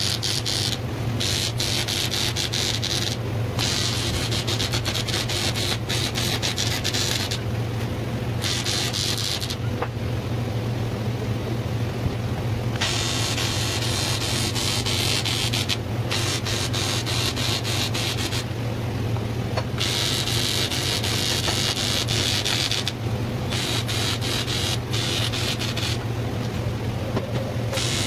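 Arc welding on a stainless steel tube frame: a crackling hiss that stops and starts in runs of a few seconds, over a steady low hum.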